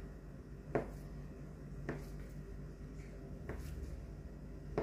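Kitchen knife cutting through a block of canned luncheon meat on a plastic cutting board: four short taps at uneven intervals of about a second as the blade meets the board, over a steady low hum.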